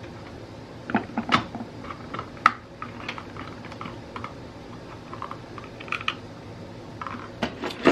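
Scattered light clicks and taps of a plastic duplex electrical outlet and a screwdriver being handled and pressed into a plastic electrical box, the sharpest clicks about a second in and near the end, over a faint steady hum.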